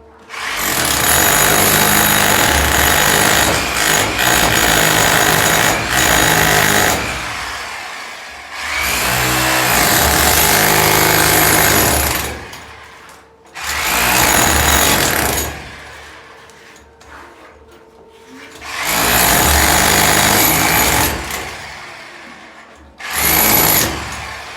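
A handheld power tool with a motor run in five bursts. The first lasts about seven seconds, and the last, near the end, is short.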